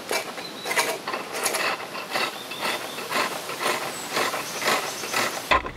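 A chisel cutting into green wood turning on a spring pole lathe, a rasping cut about twice a second as the treadle drives the workpiece toward the tool on each down-stroke.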